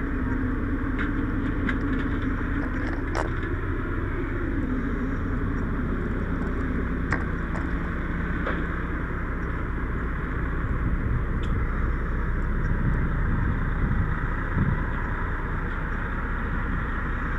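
Vehicle engine running with steady road rumble; the engine's tone drops about four seconds in, with a few faint clicks over it.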